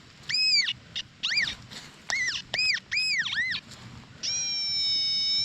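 XP Deus 2 metal detector sounding target tones as the coil sweeps: a quick run of short beeps, each rising and falling in pitch, then one long steady tone about four seconds in. The ground here is thick with square nails.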